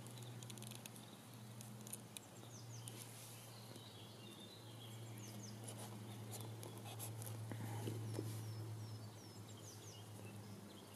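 Quiet outdoor ambience: faint bird chirps, short calls falling in pitch and repeated many times through the middle, over a low steady hum.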